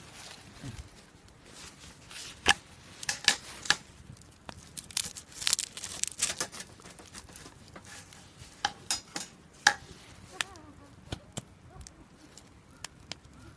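Irregular sharp snaps and cracks of dry wood at a campfire, clustered in the middle and thinning out towards the end.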